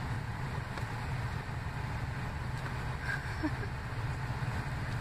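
Steady low rumble of car noise heard from inside a vehicle.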